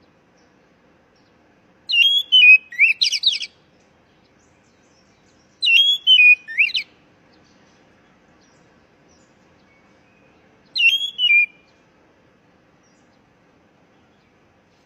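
Oriental magpie-robin (kacer) song: three short phrases of quick, varied whistled notes about 2, 6 and 11 seconds in. It is a lure call for prompting a captive kacer to sing.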